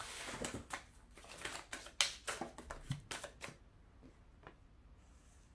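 Deck of oracle cards being shuffled and cut by hand: a quick run of card flicks and clicks for about three and a half seconds, then it stops.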